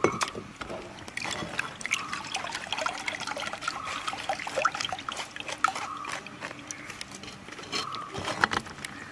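Tamarind water trickling and dripping through a steel mesh strainer into a clay pot as soaked tamarind pulp is squeezed by hand, with many small drips and splashes.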